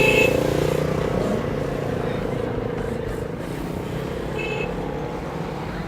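A car engine running, loudest at the start and fading over the first second or so into a steady rumble. A brief high-pitched squeak sounds right at the start and again about four and a half seconds in.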